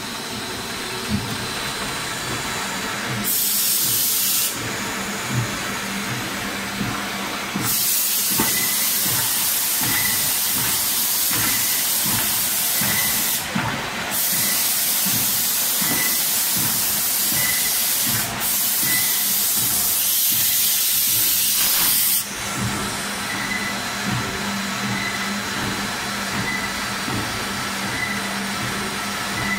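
Spindleless veneer peeling lathe and veneer line running, with a steady machine hum. A loud hiss comes in briefly about three seconds in, then again from about eight seconds to about twenty-two seconds, with two short breaks.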